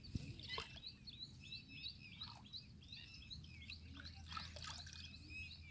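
Small birds chirping and twittering in many short, quick calls over a faint low background hum, with a single sharp click just after the start.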